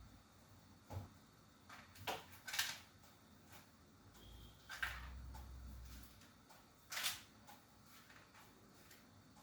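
Scattered knocks and clatters of household things being handled, about five sharp ones spread over several seconds, with a low rumble near the middle.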